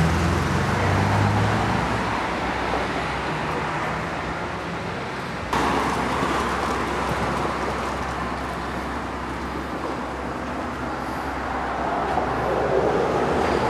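Street traffic noise: a steady rush of passing cars, stepping up suddenly in level about five and a half seconds in.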